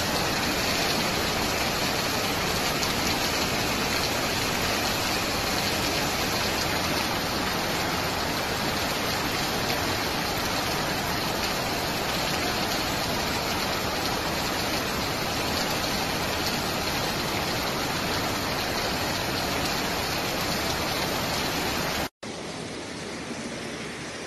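Loud, steady rush of heavy water in torrential rain. It cuts off abruptly about 22 seconds in, and a quieter rush of the same kind follows.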